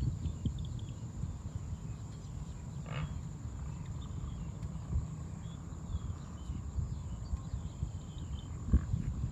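Wind buffeting the microphone outdoors: an uneven low rumble throughout. Over it run a faint steady high-pitched whine and scattered small chirps, with one short call about three seconds in.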